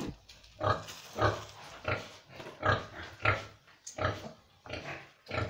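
A piglet grunting over and over in a steady rhythm, about one short call every two-thirds of a second.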